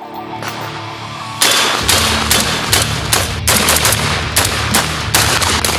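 Rock Island Armory VR60 semi-automatic 12-gauge shotgun firing a fast string of shots, starting about a second and a half in, over background music.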